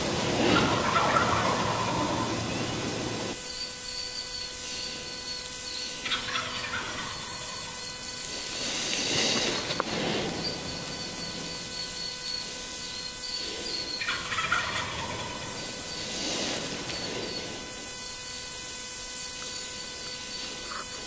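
Wild turkey toms gobbling several times, each gobble a short rattling burst a few seconds apart.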